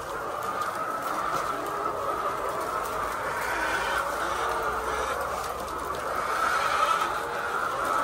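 A large flock of layer chickens calling together in a continuous, overlapping din.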